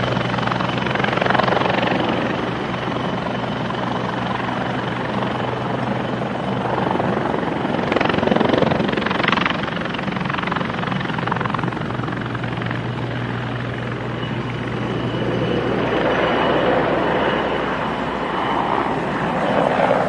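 Turbine helicopter hovering and manoeuvring low and close: a steady high turbine whine over the rapid chop of the rotor blades, the whole sound swelling and easing as the helicopter moves.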